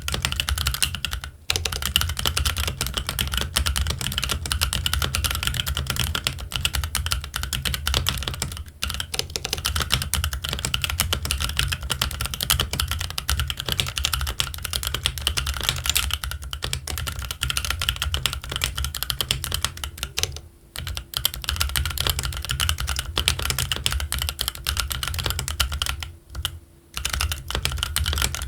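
Continuous fast typing on a Keychron Q1 aluminium mechanical keyboard fitted with Gazzew Boba U4T tactile switches and ABS Cherry-profile keycaps: a dense run of key clacks, broken by a few brief pauses.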